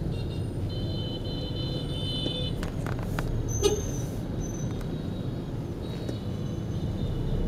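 Dense street traffic heard from inside a taxi: a steady low rumble of engines and tyres. A high-pitched squealing tone is held for about two and a half seconds at the start and again near the end, and there is a single sharp click about halfway.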